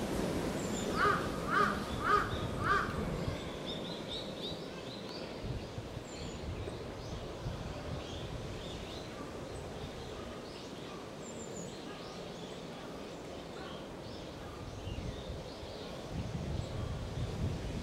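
A bird calls four times in quick, even succession, followed by fainter, scattered high chirps over a steady outdoor background hum.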